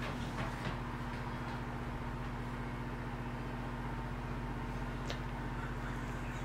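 Steady low mechanical hum of the room, with a faint tick about five seconds in.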